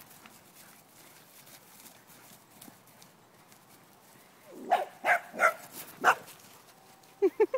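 Dog barking: four loud short barks about half a second apart, then three quicker, lower barks near the end.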